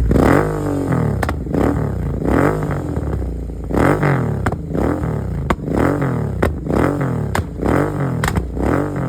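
Royal Enfield Continental GT 650 parallel-twin with an aftermarket full exhaust system, revved in repeated quick throttle blips about once a second, each rising and falling in pitch. Sharp pops and crackles sound from the exhaust as the revs drop between blips.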